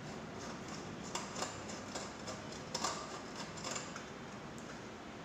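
Faint, scattered light clicks and ticks of hands handling the wiring and small metal terminals on the underside of an opened rice cooker, over a steady low hiss.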